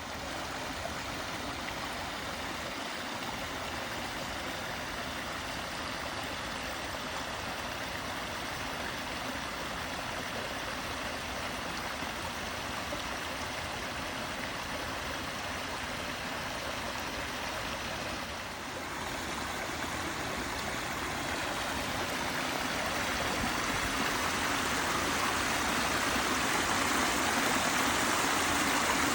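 Water running steadily into a koi pond as it is refilled, a continuous rush of flowing water that grows gradually louder over the last third.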